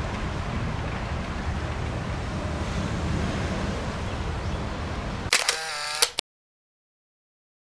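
Steady outdoor city ambience, a low rumble of distant traffic. About five seconds in comes a short, sharp, high wavering sound with a click at its start and end. The sound then cuts off abruptly to dead silence.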